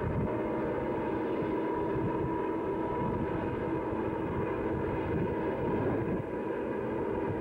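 Distant Southern Pacific diesel locomotives working a long freight train up the grade: a steady drone that holds level throughout.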